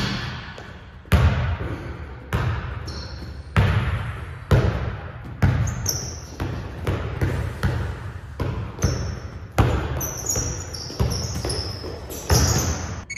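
Basketball bouncing on a wooden gym floor during play, irregular thumps about once a second, each echoing in the large hall.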